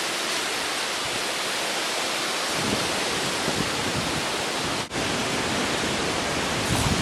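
Steady rushing noise of stormy weather, with low buffeting rumbles coming in from about the middle. It drops out for an instant about five seconds in.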